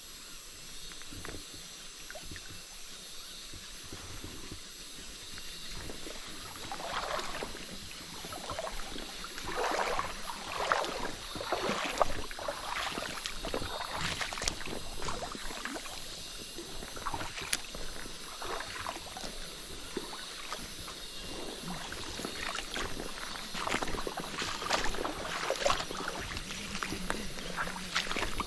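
Water sloshing and splashing in a small river, irregular and uneven, growing busier about six seconds in.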